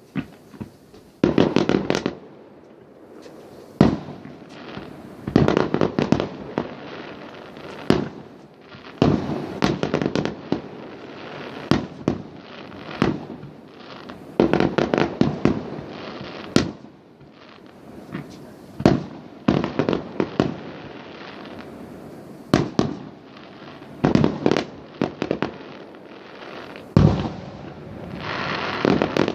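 Fireworks going off: clusters of sharp bangs and crackling volleys, one after another every second or two throughout.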